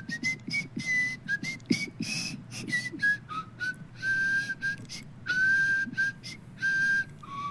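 An old man whistling a tune in a cartoon clip, a run of quick short notes followed by several longer held notes, all in a fairly high, thin register.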